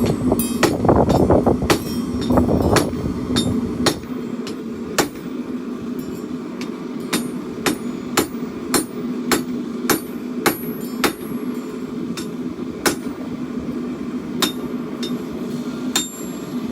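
Hand hammer striking hot steel on an anvil while forging a chopper blade, a steady run of ringing blows at about two a second. A steady hum runs underneath, and wind rumbles on the microphone for the first few seconds.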